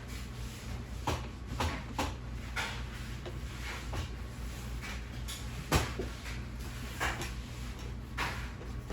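Floor being cleaned by hand, with short scraping strokes about once a second over a steady low hum. One sharper knock comes a little before the sixth second.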